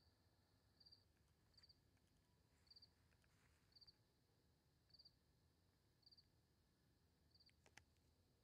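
A cricket chirping faintly, each chirp a quick run of three or four pulses, repeating about once a second over a low background hum. A couple of faint clicks come near the end.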